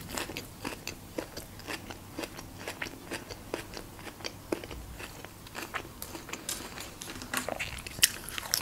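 Crisp lettuce leaves being chewed: many small irregular crunches, with a louder crunch near the end as a fresh bite of lettuce is taken.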